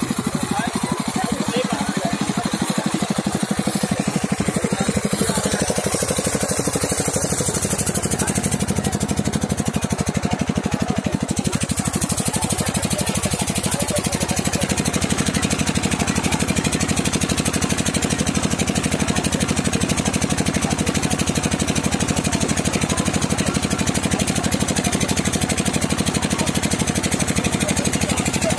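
An engine running steadily with a rapid, even pulse, at a constant level.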